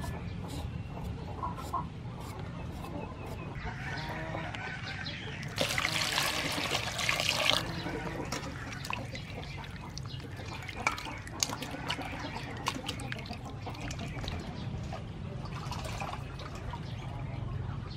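Hands washing vegetables in a stainless steel bowl of water: splashing, sloshing and small knocks, with a louder gush of water about six seconds in.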